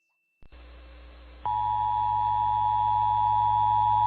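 Emergency Alert System attention signal: a steady alert tone near 1 kHz starts about a second and a half in and holds, over a low electrical hum that begins about half a second in.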